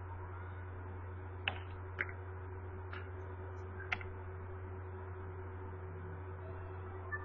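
Steady low electrical hum on an open call microphone, with four short sharp clicks in the first four seconds.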